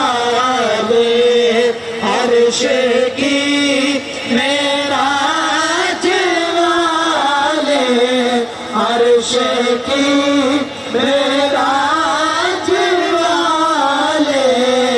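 Male voice chanting an Urdu naat, a devotional song in praise of the Prophet, in long held melodic lines with brief pauses between phrases.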